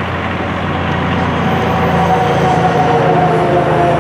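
A heavy vehicle going by on the highway: a steady drone with a held whine that comes in about a second and a half in and dips slightly in pitch later.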